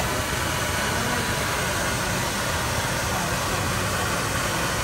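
Passenger boat's engine running with a steady low hum under an even rushing noise of water.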